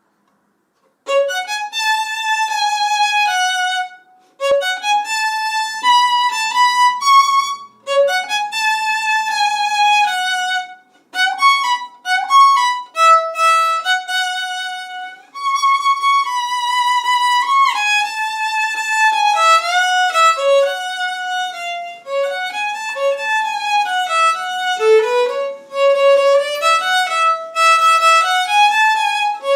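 Solo violin playing a melody with vibrato, in phrases broken by short pauses; it begins about a second in.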